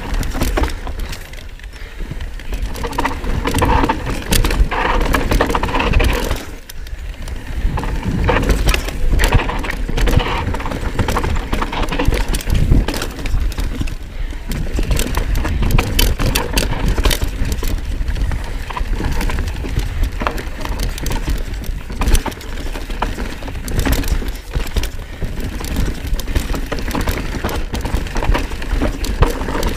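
Knolly Fugitive mountain bike clattering down a rough dirt trail at speed: a dense, irregular run of knocks and clicks from the tyres, frame and drivetrain over roots and rocks, over a constant low rumble.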